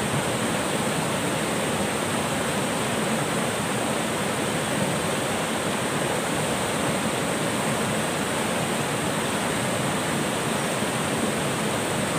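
Jungle river flowing fast over rocks: a steady, even rush of water.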